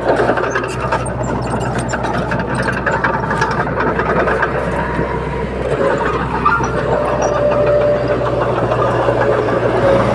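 Heavy diesel engine of earthmoving machinery running steadily, with rapid metallic clicks and clanks over it.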